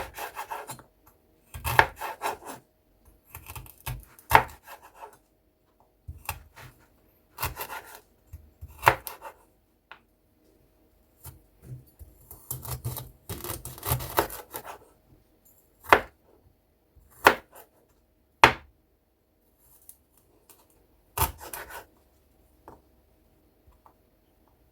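A knife chopping ginger on a cutting board. It goes in irregular runs of cutting strokes with pauses between them, and a few single sharp chops in the second half.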